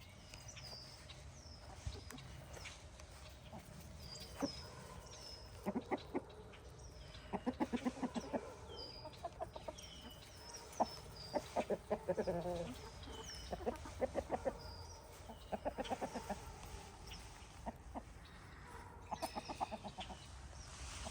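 Chickens clucking in short, rapid runs, with many high, falling chirps throughout.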